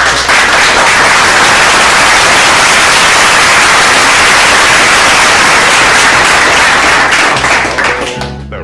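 Loud, dense noise sound effect, an even rush like static or a crowd clapping, that fades away near the end as a low bass note returns.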